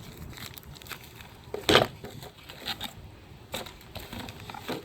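Rustling and light knocks of new brake pad packaging being handled, with a louder crinkle a little under two seconds in.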